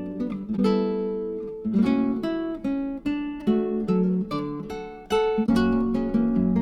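Background music: plucked acoustic guitar strumming and picking chords.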